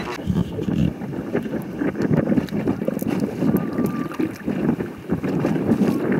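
Wind buffeting the microphone over water lapping and slapping against the hull of a small boat, in a dense, uneven rush with many small knocks.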